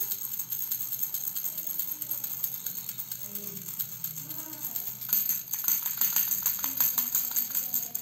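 A plastic fish-shaped baby rattle shaken by hand, the small beads inside its clear plastic ring rattling in quick runs. About five seconds in, the shaking turns harder and the rattling louder and sharper.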